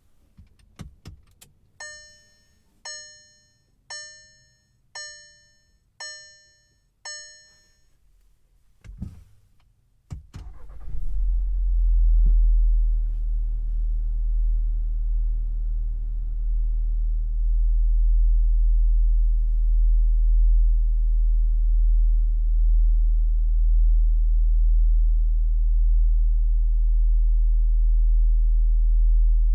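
Inside the cabin of a 2026 Volkswagen Jetta: a few clicks, then a pitched dashboard warning chime sounds six times about a second apart. After two more clicks the turbocharged four-cylinder engine starts about ten seconds in, surges briefly and settles into a steady low idle.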